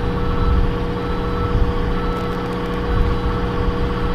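Heavy-duty pickup truck engine idling steadily, a low even rumble with a constant hum. A faint short tone repeats about once a second.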